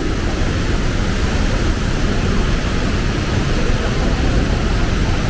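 Loud, steady rumbling background noise, heaviest in the low end, with no distinct events standing out.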